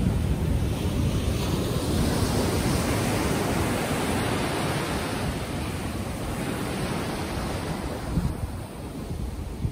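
Ocean surf washing in: a hiss that builds over the first few seconds and slowly fades, under a steady low rumble of wind buffeting the microphone.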